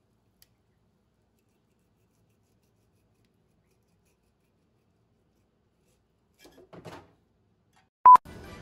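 Near silence for several seconds, then a faint short sound, then a brief loud test-tone beep near the end: the colour-bars-and-tone sound effect used as an edit transition.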